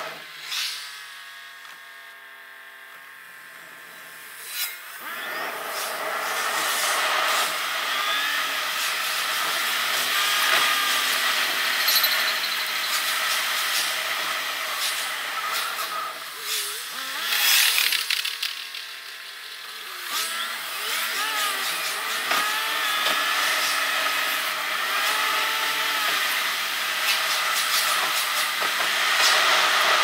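Sped-up in-car driving sound from a time-lapse: road and engine noise turned into a fast, high-pitched whir with quick rising and falling whines. It drops to a quieter steady hum twice, for a few seconds near the start and again a little past halfway.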